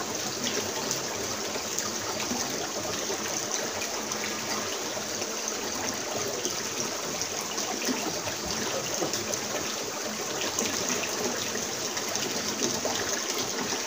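Steady running and trickling of river water, an even wash of sound with no break.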